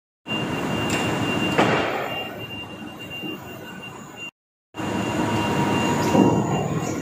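Industrial workshop machinery noise in a steel-plate cutting hall: a steady din with a constant high whine, swelling louder twice. The sound cuts out completely twice, once at the very start and once about four seconds in.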